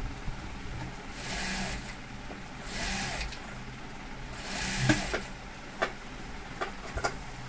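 Jack industrial walking-foot sewing machine stitching a leather bag handle fed through a folder attachment, running in three short bursts over a steady motor hum, with a few sharp clicks in the second half.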